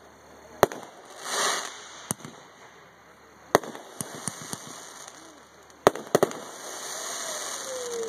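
Aerial firework shells bursting overhead: about six sharp bangs at irregular gaps, two of them in quick succession a little past six seconds in. A brief rushing noise swells and fades about a second and a half in, and a steady hiss builds near the end.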